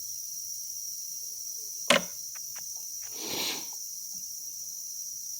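A sharp click about two seconds in, then a few lighter clicks and a short breathy rush, over a steady high-pitched hiss; the alarm has not yet started.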